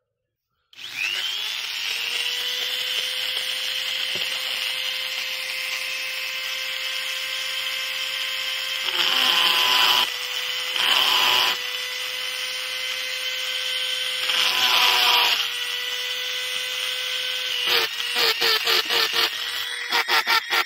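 Handheld pen-style rotary tool spins up about a second in and runs with a steady whine. Its thin bit bites into the wooden grip in three louder, gritty stretches, then in quick repeated touches near the end as it drills a row of small dot holes.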